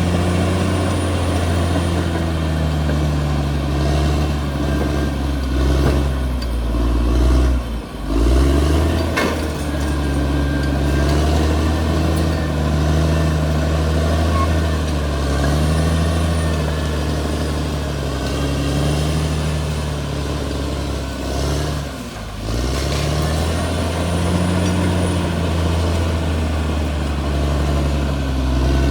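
Crawler bulldozer's diesel engine working under load, its speed rising and falling as it pushes. The engine note drops briefly twice and then picks back up.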